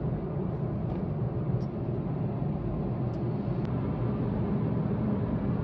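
Steady engine and tyre noise of a car cruising on the highway, heard from inside the cabin: an even low hum with a few faint clicks.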